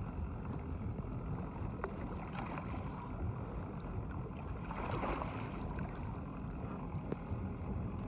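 A hooked bluefish splashing at the surface beside the boat, a short burst about five seconds in, over a steady low rumble of wind and water.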